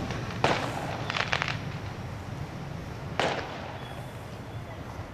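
Fireworks going off overhead: a sharp bang, a quick flurry of crackles about a second in, then another bang near the three-second mark, each trailing off in an echo.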